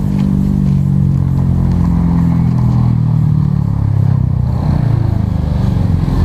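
A motor vehicle engine running nearby: a steady low hum whose pitch wavers slightly, easing off a little after about four and a half seconds.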